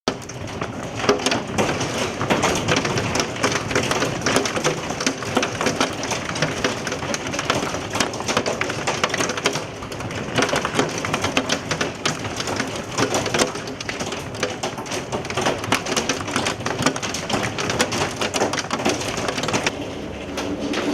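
Hailstones pelting down in a dense, continuous clatter of many sharp hits, thinning slightly near the end.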